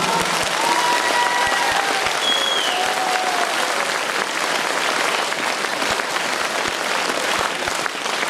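Audience applauding steadily after a song ends, with a few faint voices calling out in the first few seconds.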